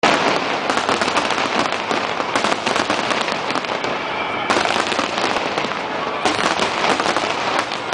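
Aerial fireworks: many shells bursting at once in a dense, continuous barrage of bangs and crackling.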